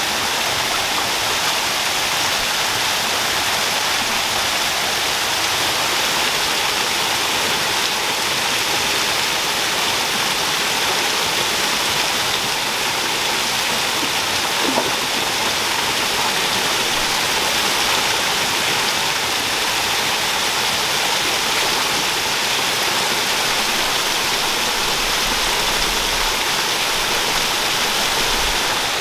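Small waterfall cascading over rocks into a shallow pool: a steady, unbroken rush and splash of falling water.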